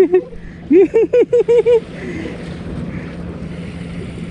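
A person's voice in a quick run of short syllables, then a steady low hum with wind on the microphone.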